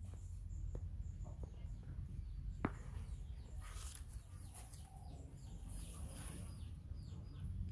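Outdoor garden ambience: small birds chirping faintly over a steady low rumble, with a few light clicks, the sharpest about two and a half seconds in.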